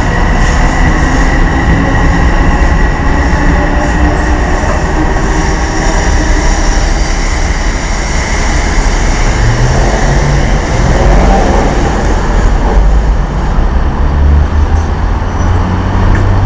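Metro-North M7A electric multiple-unit train running on the rails, with loud, steady wheel-and-rail rumble. A steady high-pitched whine sounds in the first few seconds and then fades.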